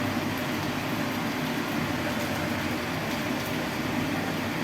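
A steady rushing hum of kitchen background noise, even throughout with no distinct knocks or clatter.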